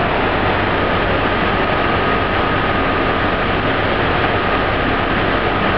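Jeep Wrangler's engine running steadily under load while its rear tyre spins and digs into soft sand without grip, the vehicle bogged down on a dune, with a faint steady whine over the noise.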